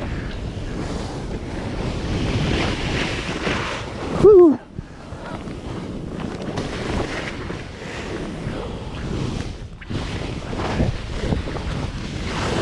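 Snowboard sliding and turning through powder snow, with wind rushing over the microphone. About four seconds in comes one short, loud yell that drops in pitch.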